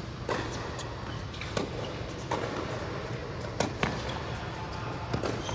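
Tennis ball being struck by rackets and bouncing on an indoor hard court during a doubles rally: about six sharp knocks at an uneven pace, each echoing in the large hall.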